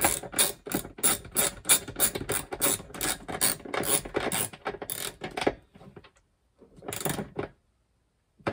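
Socket ratchet clicking in quick strokes, about four clicks a second, while tightening the solar input terminal on a DC-DC charger. It stops about five and a half seconds in, then gives one more short run of clicks.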